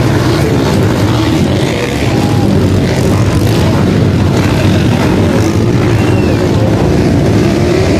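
Motocross dirt bike engines running and revving on a dirt track, their pitch rising and falling with the throttle.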